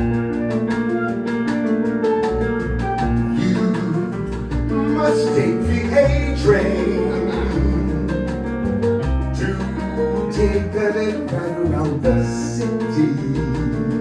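Live jazz combo playing an instrumental passage: piano chords over bass and drums keeping a steady beat, with a busier melodic line in the middle.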